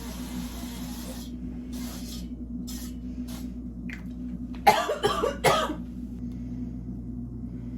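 Aerosol coconut-oil cooking spray hissing into a pan: one long spray, then three short squirts. About five seconds in, two loud coughs.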